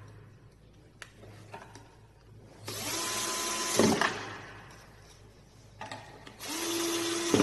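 Small electric screwdriver whirring in two short bursts of about a second each; each spins up and holds a steady whine, and the first stops with a knock as the screw seats.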